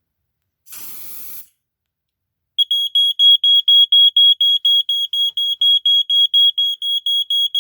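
A brief hiss of aerosol smoke-detector test spray, then about two and a half seconds in a Mastercraft 46-0083-4 smoke alarm (a Dicon 350 rebrand) goes off, set off by the test smoke. It sounds a loud, rapidly pulsing high-pitched beep, about five pulses a second.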